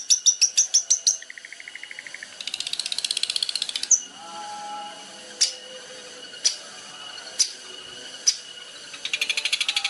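Songbird song from a bird-song training recording. It opens with fast runs of high repeated notes and a short buzzy trill, then a dense rapid high trill. Next come sharp single notes about once a second over soft lower warbling, and a rapid trill returns near the end.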